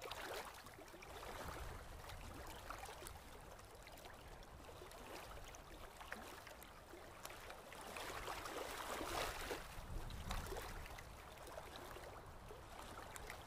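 Faint surf: small ocean waves washing up a sandy beach, swelling and easing, loudest a little past halfway.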